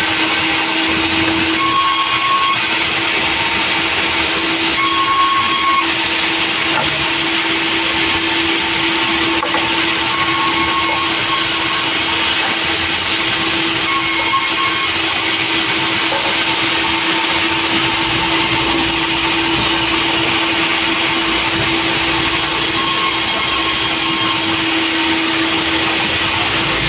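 Sawmill running steadily with a constant hum, its saw cutting through a heavy log, with brief higher squeals now and then.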